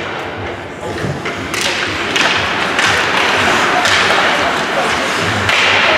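Spectators at a team sports game cheering and shouting, building up about a second and a half in, with a few sharp thuds.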